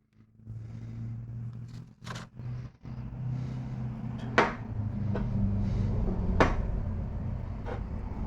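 Engine parts and tools being handled during engine assembly: three or four sharp clicks and knocks over a steady low hum.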